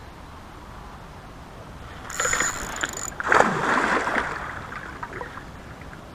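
A hooked pike thrashing and splashing at the water's surface while being played on a rod, the loudest splash about three seconds in. It is preceded by a high-pitched buzz lasting about a second.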